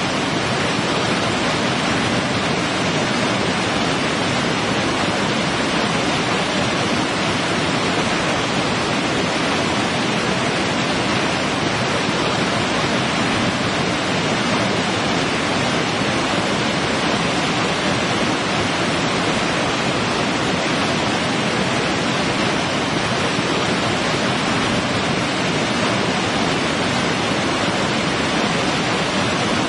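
Large multi-tiered waterfall rushing steadily over rock, an even, unbroken roar of falling water.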